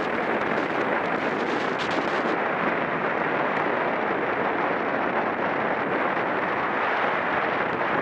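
Steady rush of wind over the microphone of a camera carried on a racing bicycle at speed.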